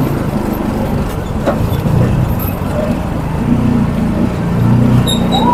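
Street traffic: a motor vehicle engine running with a steady low rumble. A brief high ring comes near the end.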